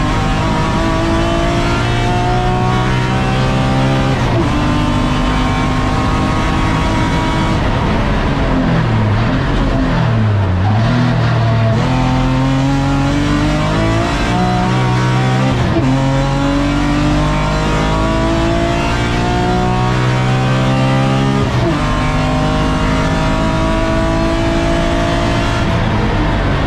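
BMW E36 M3 race car's straight-six engine heard from inside the stripped cabin, pulling hard through the gears. Its pitch climbs in each gear and drops sharply at each upshift. About nine to eleven seconds in, the pitch dips and rises twice as the car brakes and downshifts for a corner.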